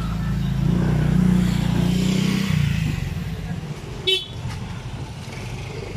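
A motor vehicle's engine running close by, a steady low hum that drops away about two and a half seconds in, then a short horn toot about four seconds in.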